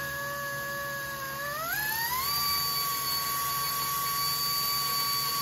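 Pneumatic air drill whining as it match-drills holes through the aluminium aft support angle. Its pitch climbs sharply about two seconds in, then holds steady.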